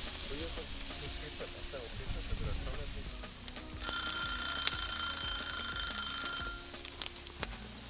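Catfish pieces sizzling in hot oil on a grill. About four seconds in, a steady high ringing tone with a hiss over it sounds for about two and a half seconds and then stops.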